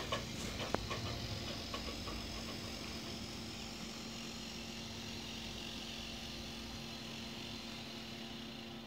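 Model railway track-maintenance vehicle (SKL) running slowly along the layout: a steady engine-like drone with a constant hum, and a few sharp clicks in the first second or two.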